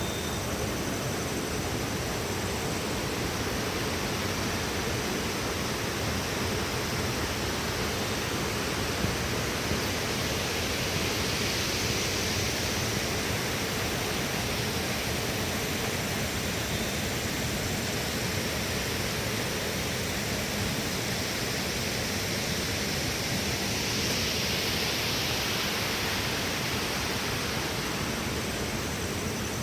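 Steady rushing of a river's flowing water, a continuous even hiss that swells a little twice.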